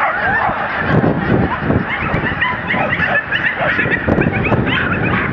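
Several dogs yelping and barking excitedly, a steady stream of short high yips overlapping one another, with wind buffeting the microphone.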